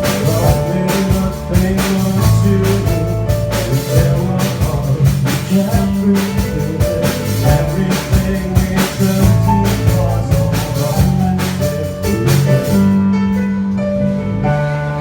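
Band music with a drum kit, bass and guitar playing a steady beat. The cymbals and high percussion drop out about 13 seconds in, leaving bass and sustained notes.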